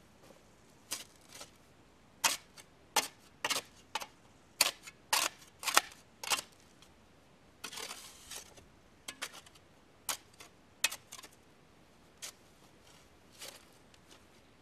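Irregular sharp knocks and clicks, about twenty of them spaced unevenly, some single and some in quick pairs, with a short scraping sound about eight seconds in.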